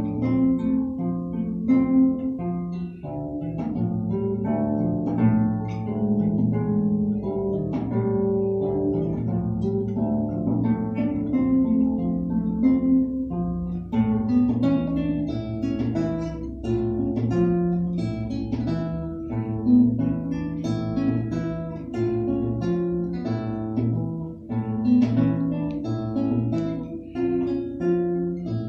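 Solo classical guitar played fingerstyle: a piece of plucked notes, turning busier with quicker, brighter notes from about halfway.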